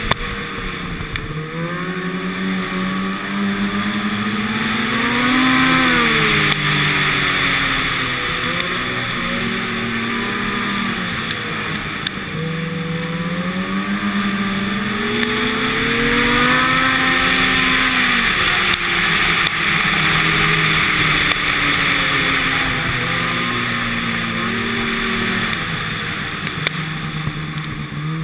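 Snowmobile engine running while the sled rides along a snow trail, its pitch rising and falling several times as the throttle is opened and eased, over a steady hiss.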